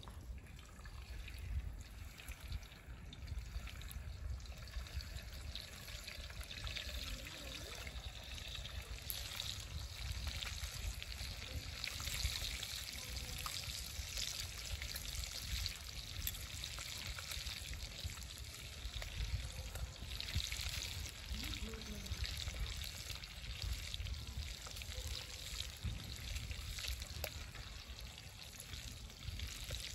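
Bacon sizzling in a skillet over a campfire: a steady frying hiss dotted with small pops, swelling a little as the strips are turned, over a low rumble.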